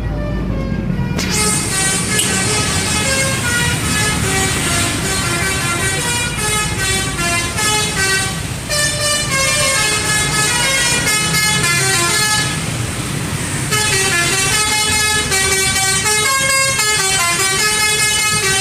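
Indonesian bus "telolet" horn, a multi-trumpet musical air horn, tooting a fast melody of changing notes over the bus's running engine. The tune starts about a second in and breaks off briefly partway through.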